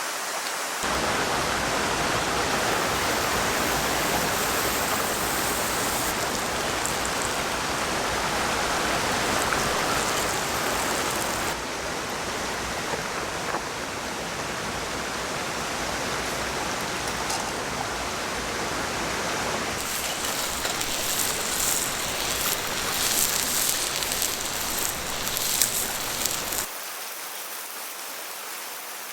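Steady rush of falling and flowing water, changing abruptly several times as shots change, with a crackling patter in the high end for several seconds near the end.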